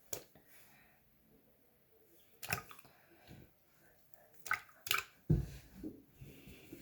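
Squishy fidget toys being put one at a time into a sink of soapy water: a few short, separate splashes and plops, unevenly spaced, with quiet between them.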